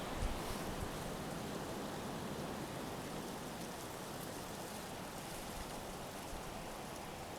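Steady hiss of nor'easter wind and blowing snow.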